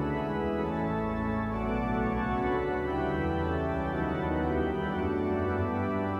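Pipe organ playing sustained full chords over a deep pedal bass.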